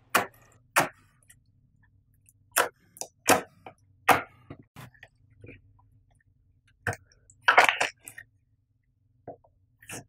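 Homemade green glue-and-borax slime pressed, poked and stretched by hand, giving about a dozen short, sticky clicks and pops with pauses between, and a quick run of them a little past the middle.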